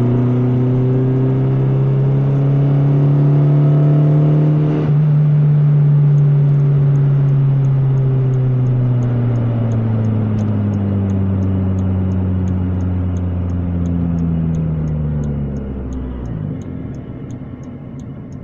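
Suzuki Swift 1.3 16-valve four-cylinder engine heard from inside the cabin, revving hard under acceleration with its pitch rising, then the revs slowly falling as the car eases off. There is a brief break in the engine note about five seconds in. The note drops away sharply and goes quieter about sixteen seconds in.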